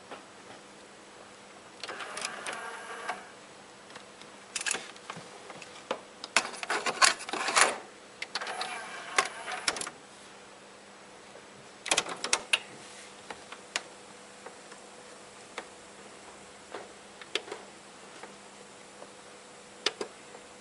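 A Technics RS-B965 cassette deck's transport mechanism clicking and whirring in short bursts as its buttons are worked, with single sharp clicks later on, over a faint steady hum.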